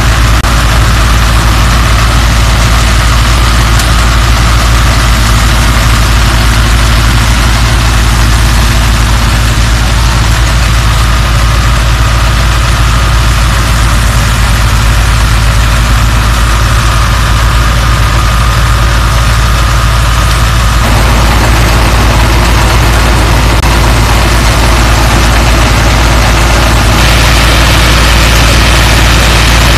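Diesel tractor engine and the wheat thresher it drives running together at a steady working speed, a loud, unbroken mechanical din that gets closer to the engine near the end.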